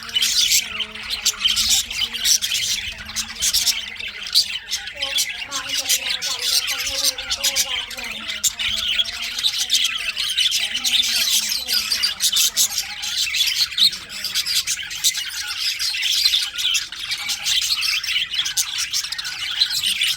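Budgerigars chattering without pause: a dense mix of rapid chirps, warbles and sharp squawks.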